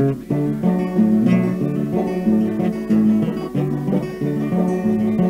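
Acoustic guitar playing a folk song's instrumental lead-in, plucked notes and chords changing at a steady, even pace.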